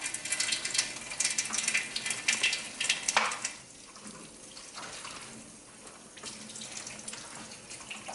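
Kitchen tap running into a sink while dishes are washed, with clinks and clatter of dishes over the first three seconds or so, then steadier running water.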